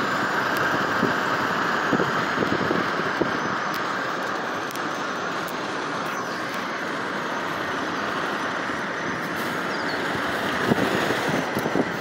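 Steady road and wind noise of a car driving at speed, heard from inside the cabin.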